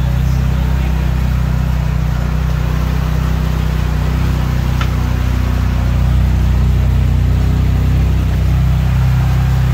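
Off-road vehicle engine running steadily under load while driving through deep swamp water, with water washing around the vehicle and into the footwell. The engine gets a little louder about six seconds in.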